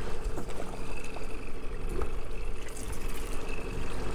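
Boat motor running steadily at trolling speed: a low, even drone with a faint constant hum.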